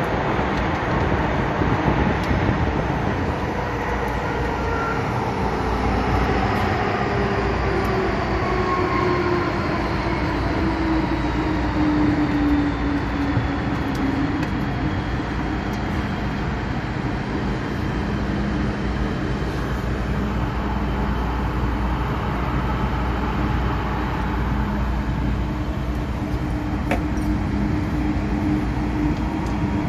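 MTR M-Train electric multiple unit running through a tunnel, heard from inside the car: a steady rumble of wheels and running gear. A traction motor whine falls in pitch over several seconds as the train slows, then settles to a steady tone.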